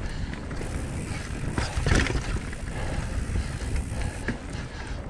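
Mountain bike rolling fast over a dirt and root singletrack: a steady low rumble of tyres on the trail with scattered knocks and rattles from the bike, the loudest knock about two seconds in.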